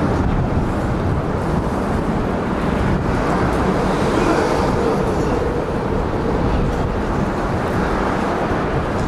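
Steady rumble of traffic crossing the bridge overhead, with a faint tone swelling and fading about halfway through.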